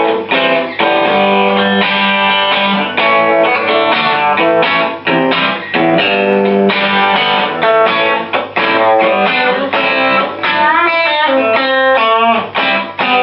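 Electric guitar played through the Dirty Dog distortion pedal's crunch channel with the gain (growl) turned down, used as a treble booster: a bright tone with little distortion. Chords and single-note phrases, with bent notes about eleven seconds in.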